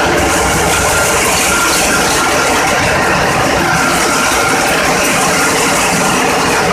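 Loud, steady running of a ship's diesel engines in the engine room: a dense mechanical clatter and hum, with a faint steady whine above it.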